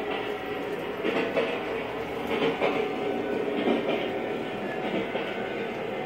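Large-scale model train running along its track: a steady rumble of wheels and motor, with clicks recurring every second or so as the wheels pass over rail joints.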